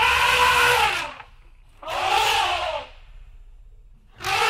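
Elephant trumpeting: loud calls about two seconds apart, each rising and then falling in pitch, with a third call starting near the end, over a low rumble.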